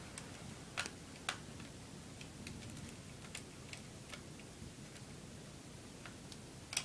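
Faint, irregular plastic clicks and ticks as a laptop's plastic case halves are pried apart at the seam with a small tool, the snap-in retaining clips releasing; a couple of sharper clicks come about a second in and another near the end.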